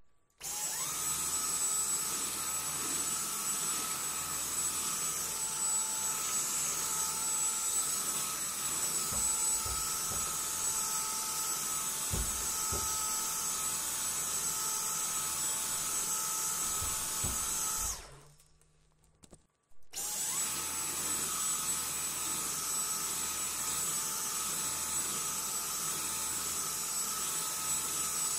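Dyson vacuum cleaner switched on, its motor rising quickly to a steady high-pitched whine and running, with a few low knocks around the middle. About eighteen seconds in it is switched off and winds down, then it is switched back on and spins up again.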